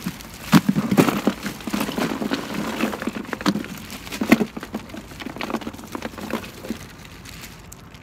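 Plastic bags of ice crinkling and knocking as they are pushed into a small hard-sided plastic cooler: irregular rustles and bumps, loudest in the first half.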